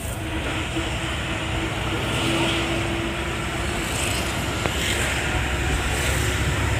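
Steady engine and road noise inside a moving non-AC sleeper bus, heard from within a berth.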